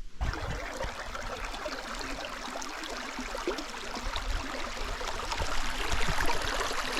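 Creek water running, a steady rushing hiss that grows a little louder toward the end, with scattered low bumps.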